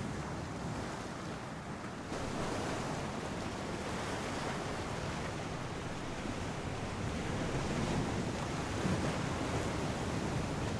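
Sea waves washing against the shore, with wind buffeting the microphone; a little louder from about two seconds in.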